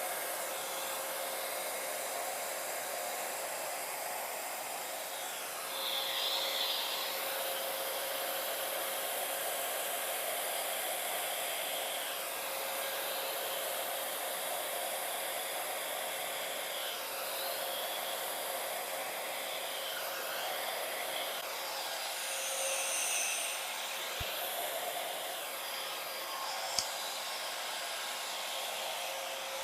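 Handheld hair dryer running steadily, blowing wet acrylic paint across a canvas: a constant rush of air with a steady motor whine, swelling slightly now and then. One sharp click comes near the end.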